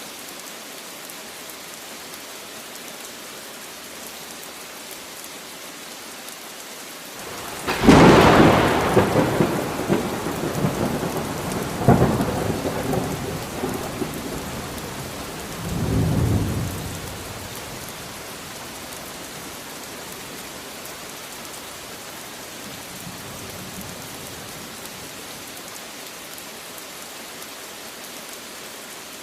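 Steady rain with a thunderclap: a sharp crack about eight seconds in, then rolling rumbles that flare again twice and fade out over about ten seconds, leaving the rain alone.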